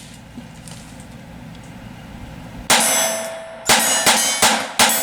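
Five shots from a Taurus TX22 .22 LR pistol: one shot, then after about a second four more in quick succession, with a ringing tone hanging on after them. The pistol cycles each Federal Classic round without a stoppage.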